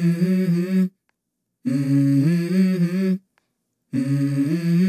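Wordless low-pitched humming in three short melodic phrases, each stepping between a few notes, with a silent gap of under a second between phrases.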